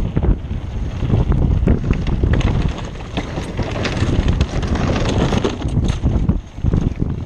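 Wind buffeting the microphone of a mountain bike rider's camera during a fast downhill run, over tyres rumbling on a dirt trail and frequent rattling clicks from the bike.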